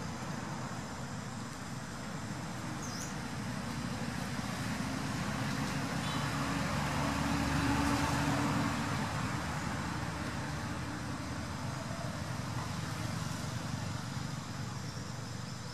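A road vehicle passing, its engine and road noise swelling to a peak about eight seconds in and then fading.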